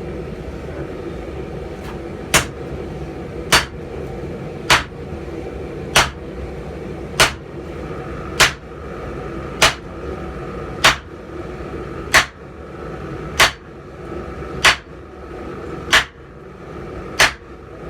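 Hammer blows on hot steel at the anvil while a bic horn is drawn out, thirteen evenly spaced strikes about one every 1.2 seconds, starting about two seconds in. A faint ring comes off the steel between the later blows, over a steady background roar.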